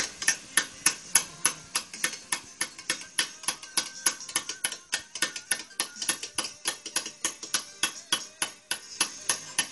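Hammer striking a steel chisel into a stone slab in quick, even taps, about four or five a second, as a relief is carved into the stone.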